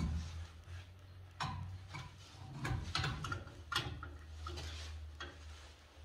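Hand tools and metal pipe fittings being handled on boiler piping: irregular sharp clicks and knocks, several over a few seconds, over a low steady hum.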